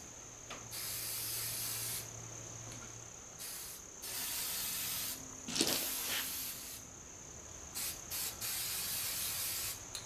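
Aerosol spray-paint can hissing in a series of short bursts, each about half a second to a second and a half long, with gaps between them. There is one short knock about halfway through.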